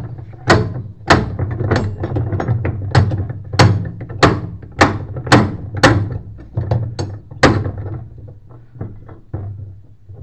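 Hammer blows struck at a steady pace, about two a second, turning to lighter taps near the end, during repair work on a top-loading washing machine.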